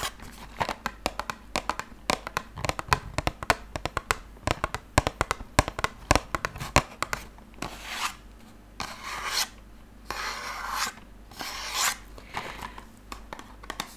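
Fingernails tapping and scratching on a small cardboard tablet box held close up: for about the first half, rapid crisp clicks. After that come slower rubbing swishes as fingers slide across the box.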